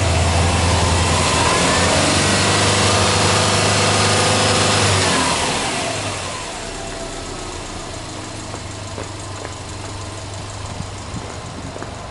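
Subaru Impreza WRX STI's turbocharged flat-four boxer engine being revved with no load: the revs climb and are held high for a few seconds, then fall back about five seconds in and settle to a steady idle.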